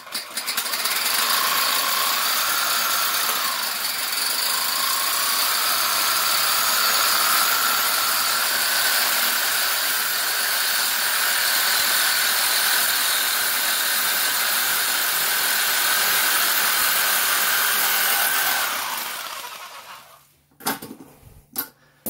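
Cordless reciprocating saw with a carbide-tipped demolition blade cutting through a hardened stainless steel padlock shackle. It makes a loud, steady sawing with a high metallic screech, with the saw in orbital mode so that the blade bounces and chips its teeth. The sawing stops a few seconds before the end, and a couple of knocks follow.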